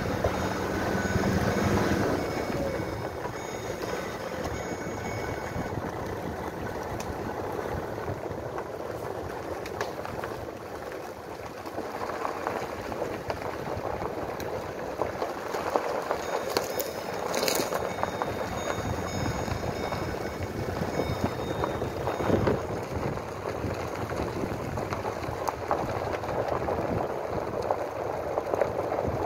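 Strong wind rushing and buffeting the microphone, swelling and easing unevenly, over the steady noise of a vehicle driving along slowly.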